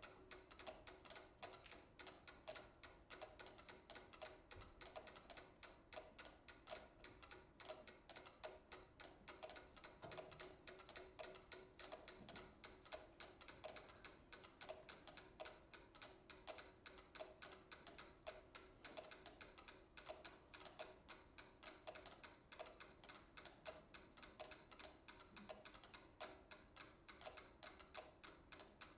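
Four mechanical pyramid metronomes ticking together at different tempos, 60, 88, 120 and 208 beats a minute, their clicks overlapping in a steady, shifting pattern of many faint ticks a second.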